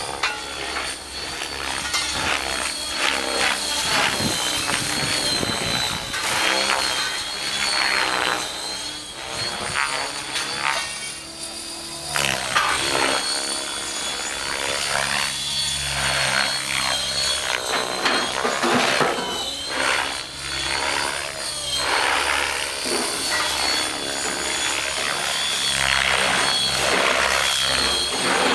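Rave ENV electric radio-controlled helicopter in flight: a high motor and gear whine with the rotor blades whooshing, the pitch and loudness sweeping up and down over and over as it manoeuvres and passes.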